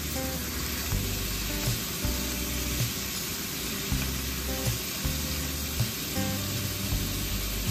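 Thinly sliced raw beef sizzling in hot oil in a nonstick frying pan as it is spread out with wooden chopsticks: a steady frying hiss. Background music with a steady beat plays underneath.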